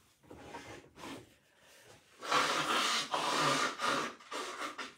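A person's breath noises: a few short ones, then a longer rough stretch lasting about two and a half seconds.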